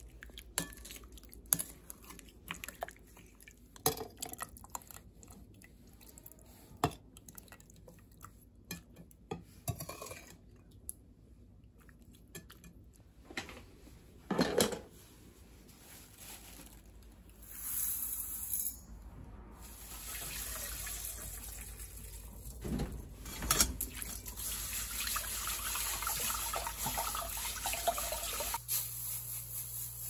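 Kitchen prep sounds: scattered clicks and taps of utensils and glassware, then from a little past halfway a steady rush like water running at a sink.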